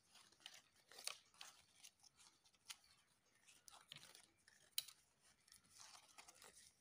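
Faint rustling and small scattered clicks as hands handle a stiffened cotton dress and a cloth measuring tape.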